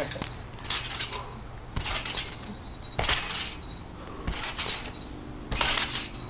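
Trampoline under repeated bounces and tuck backflips: each landing on the mat and springs gives a low thud and a short rush of noise, about once every second or so.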